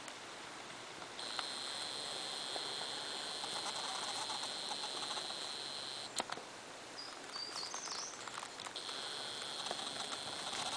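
Shallow stream trickling over stones, with a steady high-pitched buzz that starts about a second in, breaks off around six seconds with a click, and returns near the end; a bird chirps a few times in the gap.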